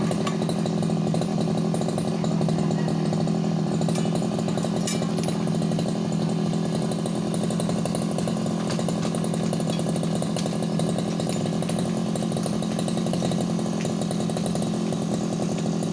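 Brush cutter's small petrol engine running steadily at an even speed, with no revving or change in pitch.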